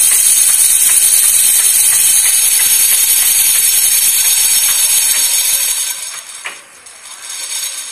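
Shiela sewing machine running fast to wind a bobbin, giving a steady high whirr with light ticks, the thread held taut so that it winds on tight. The machine slows and winds down about six seconds in.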